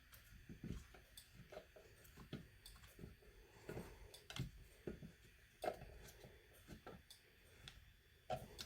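Near silence, with faint, irregular clicks and light knocks of handling.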